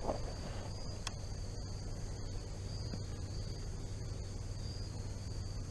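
Steady, high-pitched insect chorus, with a low steady hum underneath and a single short click about a second in.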